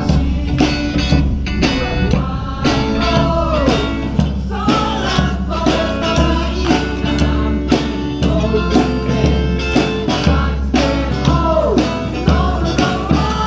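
A live band performs a song with guitar and singing over a steady beat.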